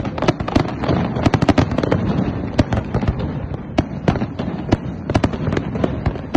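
Fireworks display: aerial shells bursting in a fast, irregular string of sharp bangs, several a second, over a continuous low rumble.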